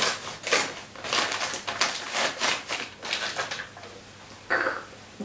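Gift wrapping rustling and crinkling as a present is unwrapped by hand: a quick run of irregular rustles that dies down, with one last short rustle near the end.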